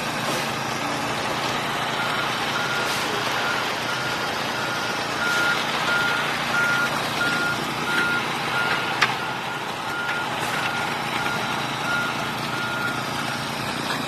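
Concrete mixer truck's reversing alarm beeping evenly, about three beeps every two seconds, starting about two seconds in and stopping near the end, over steady engine noise from the truck and the small gas engine of a concrete power screed.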